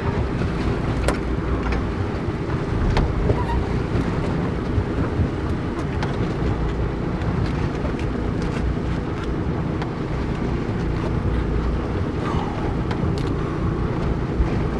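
A boat's engine running steadily under wind noise on the microphone, with a few light clicks and knocks from work on the deck.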